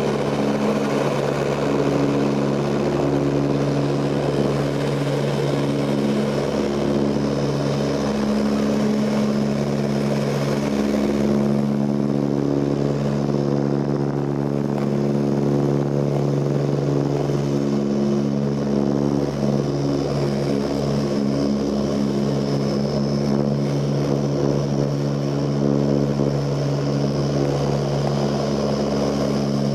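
Ilyushin Il-18's four Ivchenko AI-20 turboprop engines and propellers heard from inside the cabin in flight. It is a steady drone with several held low tones that swell and fade as they beat against each other.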